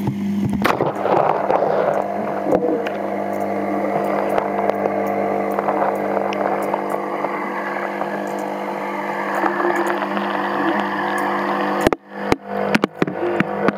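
Steady hum of aquarium equipment under a muffled rushing of water, picked up by a camera held underwater in the tank. Near the end the sound cuts out and back in several times, with a few sharp knocks.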